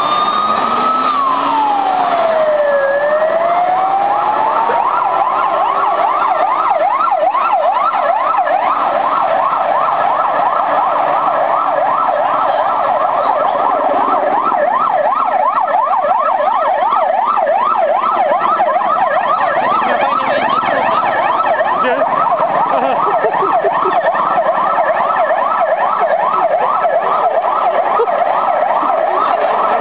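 Police vehicle sirens: a slow rising and falling wail that switches about six seconds in to a fast yelp, with overlapping sweeps that continue to the end.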